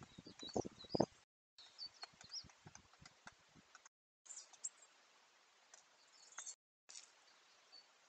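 Sharp taps and knocks as a great spotted woodpecker pecks at seed in a feeder dish, loudest in the first second and fainter over the next few seconds. High chirps of woodland birds sound in the background, all sped up to double speed and pitched up. The sound drops out briefly twice.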